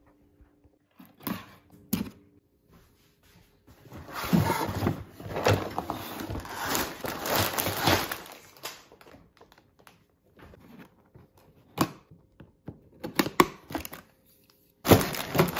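Unboxing noises: a cardboard box being opened and handled, and plastic bags of LEGO pieces crinkling and rustling. There are a couple of sharp knocks in the first two seconds, a long stretch of crinkling in the middle, scattered clicks, and louder handling again near the end.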